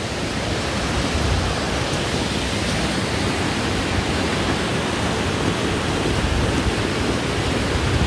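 Fast mountain river rushing over rocks in white-water rapids, a steady, even rush of water.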